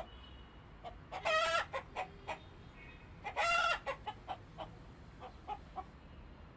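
Penned poultry calling: two loud, harsh calls about two seconds apart, with scattered short clucks and chirps between them.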